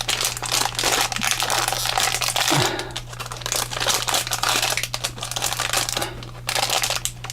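Plastic-foil blind-bag packet crinkling and rustling in the hands as it is worked open, in an irregular run of crackles.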